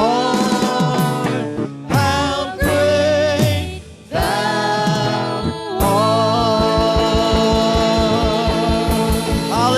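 Church worship song: a singer's voice over a band, with a long held sung note from about six seconds in.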